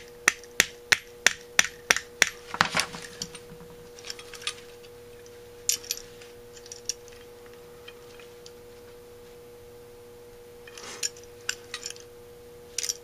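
Light, sharp metal-on-metal taps, about three a second, as a screwdriver is tapped against a Holley 1904 carburetor's choke shaft to drive a part back into place. The tapping stops after about two seconds, giving way to a brief clatter and then scattered light knocks as the metal carburetor body is handled and turned over.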